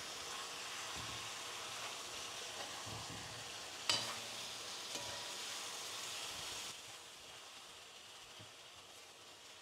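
Chicken wings sizzling as they brown in their own juices, with no liquid added, in a heavy black pot, while a metal spoon stirs them. The spoon knocks sharply against the pot about four seconds in, and the sizzle gets quieter after about seven seconds.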